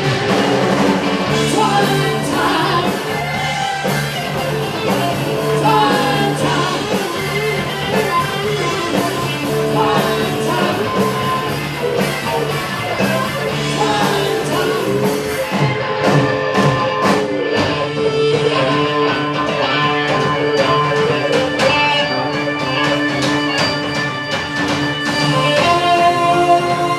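Rock band playing live, with electric guitar, bass and drums, and singing over the top.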